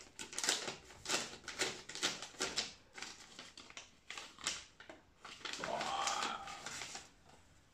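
A paper envelope being opened by hand: a run of crisp crackles and tears as the paper is pulled apart and rustled. About six seconds in, a short rising vocal sound from the man.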